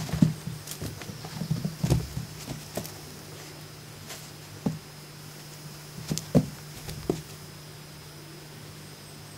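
Kittens playing on carpet: soft, irregular thumps and scuffles of paws as they pounce and tumble, in a busy flurry at first, then single bumps with pauses between, over a steady low hum.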